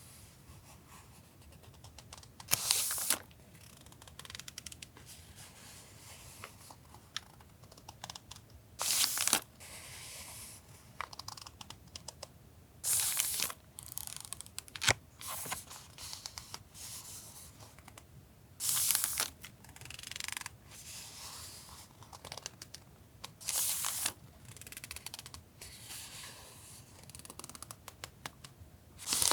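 Sheets of journaling paper being handled and turned over, a loud brief paper rustle every few seconds with light crackles and taps between.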